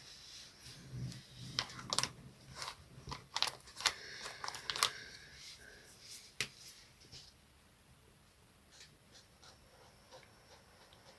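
Coloring sounds: a quick run of scratchy strokes and small clicks and taps, busiest in the first six or seven seconds, then only faint scattered clicks.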